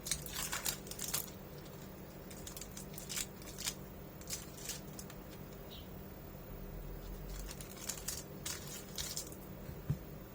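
Irregular small clicks, scrapes and rustling from parts being handled at a workbench during a laptop repair, with a steady low hum underneath.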